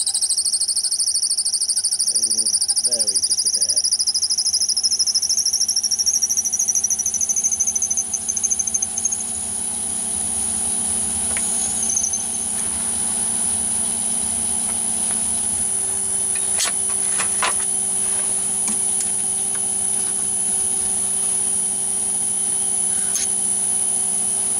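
Myford lathe spindle running while a twist drill cuts through the bore of a steel collet chuck holder, with a high-pitched squeal that climbs in pitch for about the first nine seconds before the cutting stops. The machine then runs on with a steady whine and hum, and a few sharp clicks come in the second half.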